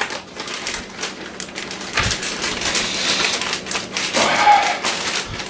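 Rustling and crackling handling noise with many small, rapid clicks, denser from about two seconds in, as a head of lettuce is fetched and handled.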